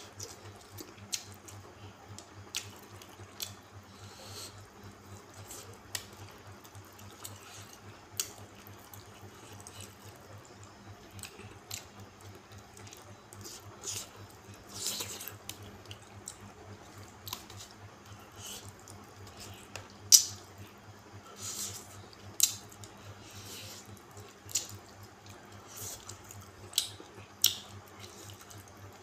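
Close-miked wet chewing and lip-smacking of a person eating rice and curry by hand, in irregular sharp smacks and clicks, the loudest about twenty seconds in, over a steady low hum.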